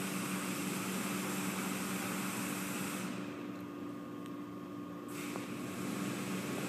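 Water spray hissing in a truck wash bay over a steady low machine hum. The spray stops for about two seconds midway, then starts again.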